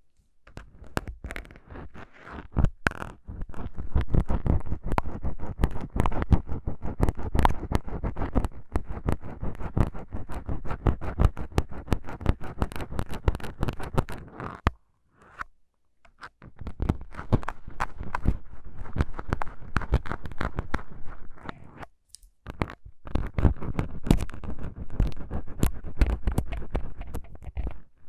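Syringe needles scratching and poking into the foam windscreens of a Tascam DR-40X recorder's microphones, heard very close as a dense, rapid crackly scratching. It runs in three long stretches, breaking off briefly about 15 and 22 seconds in.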